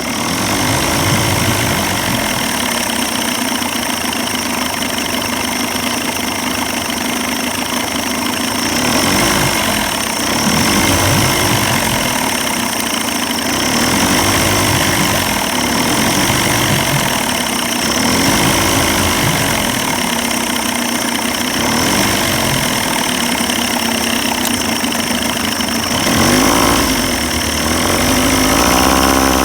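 1990s Evinrude 30 hp two-stroke outboard motor running at low speed, its revs rising and falling unevenly while it clears water out of its carburetor and fuel lines. It runs louder and faster near the end.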